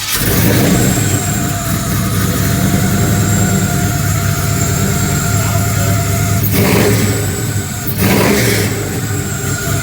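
Chevy K5 Blazer's engine catching and running loud and steady, with two short revs about six and a half and eight seconds in.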